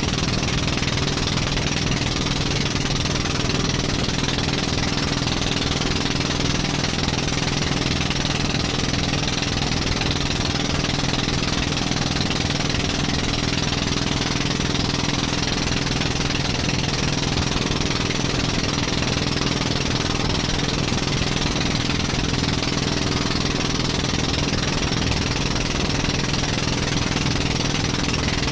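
Motorized outrigger boat's engine running steadily, its even drone constant throughout, under the rush and splash of choppy water along the hull and outriggers.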